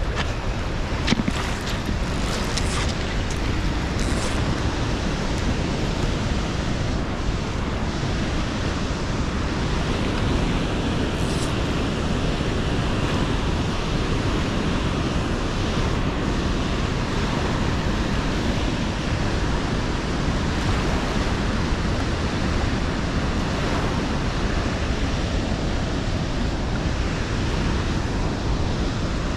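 Steady rushing of a high, fast river with water pouring from a dam spillway, a constant noisy wash with no pitch. A few short clicks stand out in the first few seconds and once more a little before halfway.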